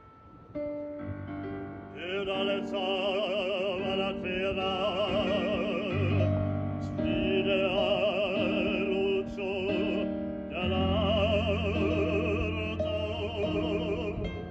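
Music: an operatic voice singing with a wide vibrato over piano accompaniment. The voice comes in about two seconds in.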